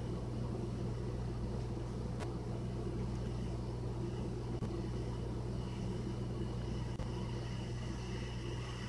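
Glass electric kettle heating water, not yet at the boil: a steady low rumble, with a faint higher hiss joining about six seconds in.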